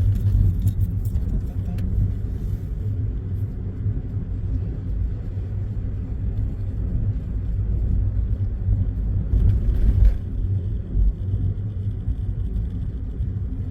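Steady low road rumble of a moving car heard from inside the cabin, with a short knock about ten seconds in.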